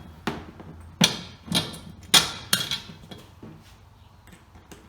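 Sharp clicks and knocks of wheelbarrow bolts and nuts being fitted by hand through the steel arm and plastic tray. There are about five in the first couple of seconds, the loudest a little after two seconds, and then it goes quieter.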